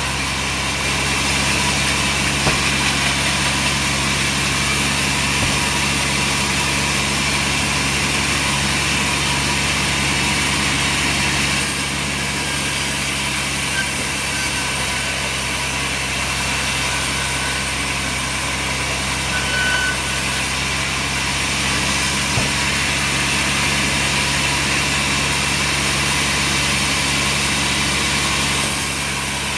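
Sawmill machinery running steadily: a constant engine or motor hum with an even hiss over it.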